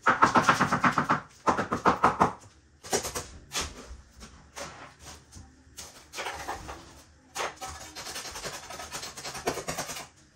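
Rasping strokes of a hand trowel working wet concrete on a countertop. The strokes are loudest and quickest over the first two seconds, then become lighter scrapes and taps that come and go.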